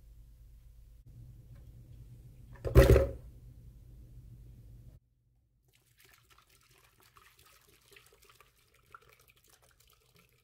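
A single loud knock about three seconds in, then water poured from a plastic bottle into a blender jar full of celery stalks, splashing faintly through the last four seconds.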